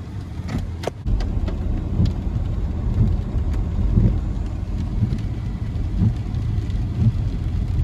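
Car interior road noise while driving: a steady low rumble, with a few light clicks in the first few seconds.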